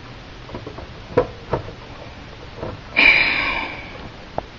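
A plastic clock radio cassette recorder being handled and tipped over: a few light knocks of its case, then a scraping rub lasting about a second, and a single click near the end.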